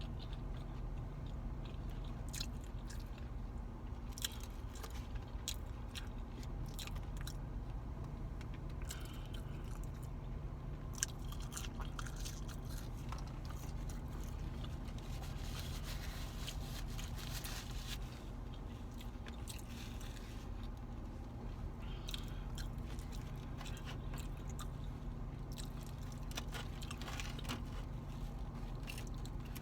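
Close-miked chewing and crunching of fast food, with scattered sharp mouth clicks, over a steady low hum.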